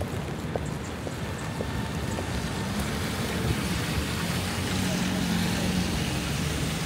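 City street traffic in the rain: a steady wash of tyres on wet pavement, with a vehicle engine's hum that builds about two seconds in and fades near the end.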